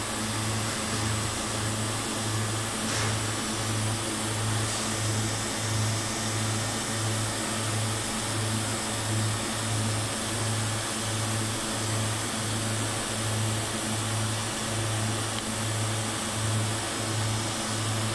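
TIG welding arc on a steel pipe joint: a low hum that pulses evenly about twice a second over a steady hiss, the beat of a pulsed welding current.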